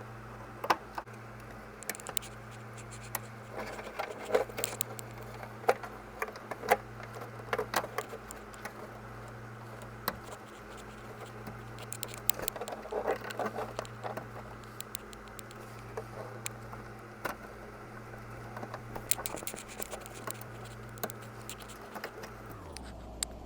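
Irregular clicks, taps and scrapes of hand tools and small metal parts being handled, in scattered clusters, over a steady low hum that drops lower near the end.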